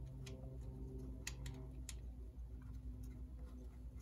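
A few scattered light metallic clicks as a screw is fitted by hand with an Allen key into a shift-guide bracket.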